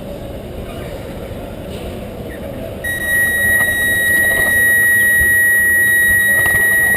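A loud, steady high-pitched electronic tone or whine starts about three seconds in and holds without changing pitch, over a background of indoor crowd noise.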